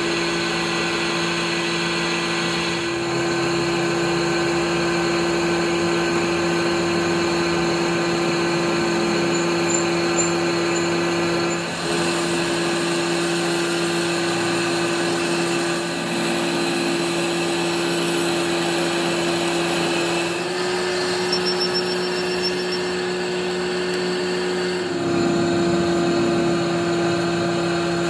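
Metal lathe running steadily while a twist drill in the tailstock bores into the end of a spinning metal bar, giving a steady motor hum with the noise of the cut over it. The hum steps slightly in pitch twice in the second half.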